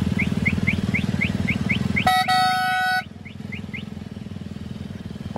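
Motorcycle engine running steadily, with a vehicle horn sounding once for just under a second about two seconds in. When the horn stops the engine noise drops and carries on quieter, while a quick series of short high chirps, about three to four a second, runs underneath until near four seconds.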